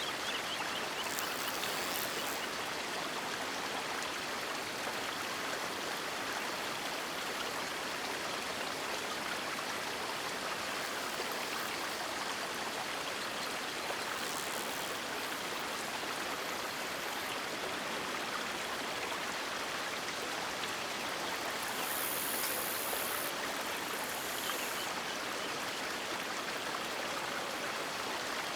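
River water flowing steadily, a continuous even rushing with now and then a brief brighter hiss.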